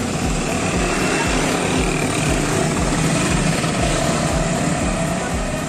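Steady street and traffic noise with a low rumble underneath.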